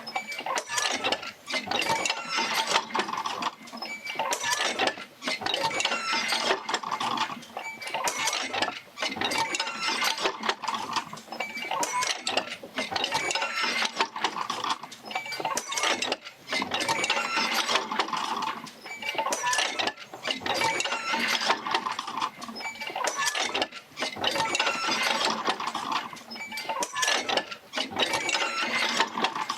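The field wheel of an oil-field jerker-line system rocks back and forth, driving the jerker lines out to the pumps. Its pivots and linkages make a steady rhythm of metallic squeaks, clicks and clinks that swells and eases every couple of seconds.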